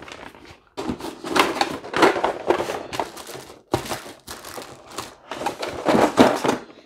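Board game pieces being packed back into their box: plastic wrap and bags crinkling, with soft knocks of cardboard and plastic trays, in four or five bursts.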